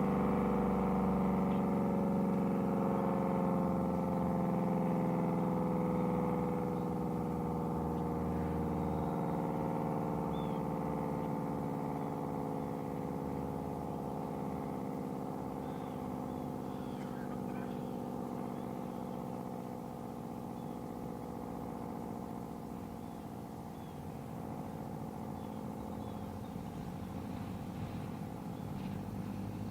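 Federal Signal SD-10 outdoor warning siren winding down after its signal, one steady tone sliding slowly lower in pitch and fading as the rotor coasts to a stop.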